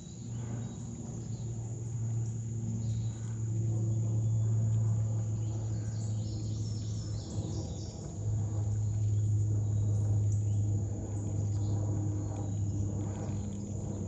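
Insects trilling steadily in a high, even tone over a steady low rumble that dips briefly about halfway through.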